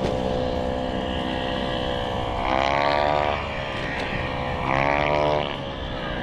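An engine running steadily, its pitch swelling up and back down twice in short surges, like the throttle being opened and eased off while riding.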